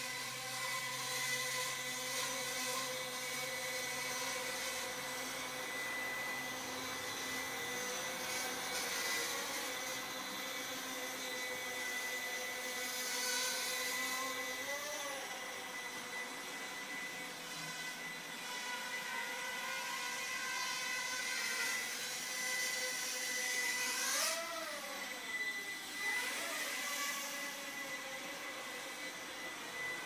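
Walkera QR Ladybird micro quadcopter's four small motors and propellers whirring steadily in flight, a thin buzzing whine. The pitch swings down and back up about halfway through and again several times near the end as the motor speeds change to steer it.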